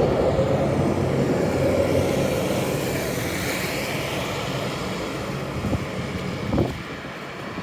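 A motor vehicle's engine running as it passes on the street, its steady hum slowly fading away.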